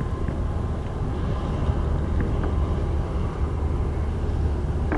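A steady low rumble, with no voices.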